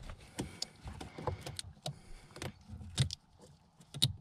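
A brake controller wiring adapter cable and its plastic plug being handled and worked onto a keyed connector under a dashboard: irregular small clicks, taps and rattles of plastic and cable, with two sharper clicks about three and four seconds in.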